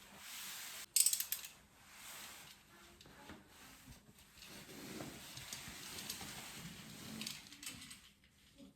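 A short burst of rapid mechanical clicks, ratchet-like, about a second in, followed by faint rustling and scraping of handling.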